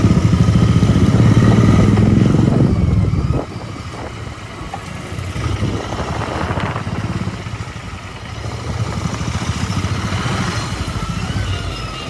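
Motorcycle engine running with a fast, low pulsing beat. It is loud at first, drops suddenly about three and a half seconds in, then carries on quieter, swelling and easing.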